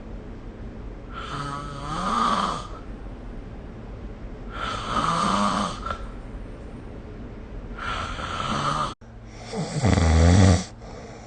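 A sleeper snoring: four snores about three seconds apart, each lasting a second or so, the last the loudest. The sound cuts out for an instant just before the last snore.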